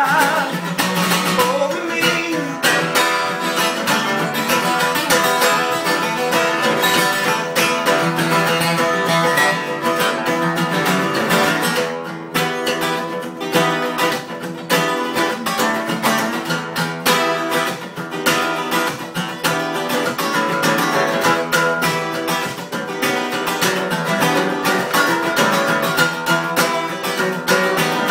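Two acoustic guitars played together, strummed in a steady rhythm, with a man singing over them.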